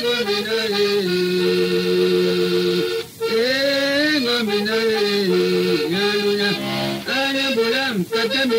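Sierra Leonean Mende accordion song: a man sings a wavering, chant-like melody over held accordion chords, with short breaks between phrases.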